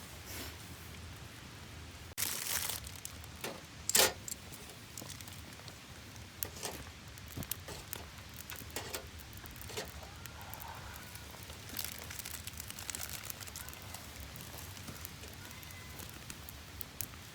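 Wood campfire crackling with scattered pops. A louder rustling burst comes about two seconds in and a sharp, loud pop about four seconds in.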